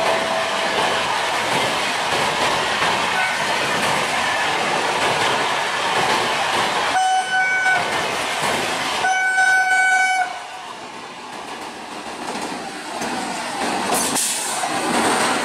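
WAG-9 electric locomotive hauling a fast freight train of oil tank wagons, with the running and clickety-clack of the wheels, and two horn blasts of about a second each, midway through. The train noise drops away suddenly just after the second blast and builds again near the end.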